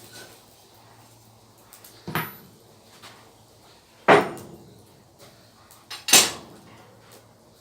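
Three sharp knocks about two seconds apart, the second and third loudest, each dying away quickly, over a faint low steady hum.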